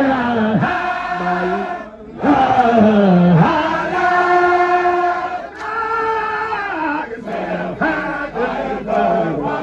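Man's voice chanting a Baye Fall devotional chant in long held notes that slide down in pitch, pausing briefly for breath twice.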